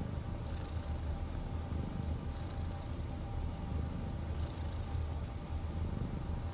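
Relaxed domestic cat making a low, continuous rumble with a soft breathy hiss about every two seconds, which the owner calls snoring.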